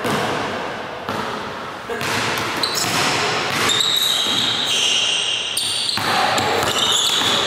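Basketball dribbled on a hardwood gym floor in a large echoing hall, with sneakers squeaking sharply on the floor from about three seconds in as the players move.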